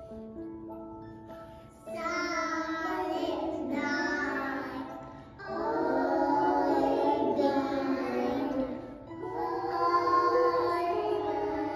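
A group of young children singing a Christmas song together over an instrumental backing. Held instrumental notes lead in, and the singing starts about two seconds in, in phrases with short breaks.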